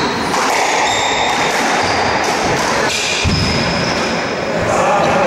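Squash rally on a hardwood court: short high shoe squeaks and ball strikes, with one sharp hit about three seconds in, over a steady background din.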